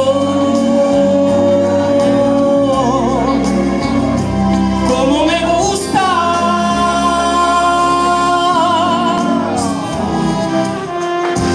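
A man singing into a handheld microphone over music, holding long notes that end in vibrato; about five seconds in his voice slides up to a high note and holds it for several seconds before tapering off.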